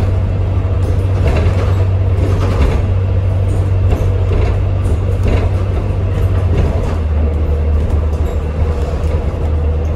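Inside a Volvo B5L hybrid double-decker bus under way: a steady low drivetrain hum with the body and fittings rattling and knocking over the road. The hum drops slightly in pitch about seven seconds in.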